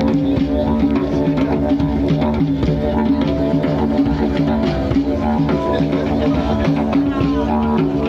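Music with a steady low drone under a busy rhythmic pulse.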